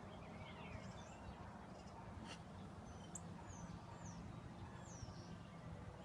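Faint outdoor ambience with small birds chirping: short, scattered high chirps over a low steady hum, and a faint click about two seconds in.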